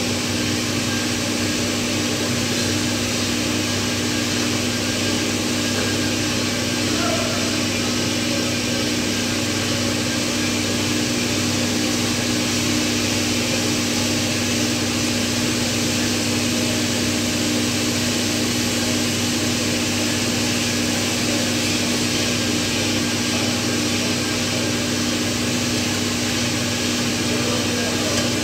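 Steady machine hum: a constant drone holding two low steady tones over an even hiss, unchanging throughout.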